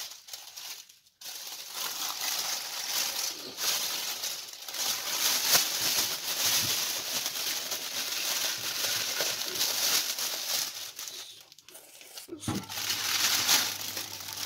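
Plastic roasting bag crinkling and rustling as it is handled and filled with chunks of marinated pork, carrots and onions, with short pauses about a second in and again near the end.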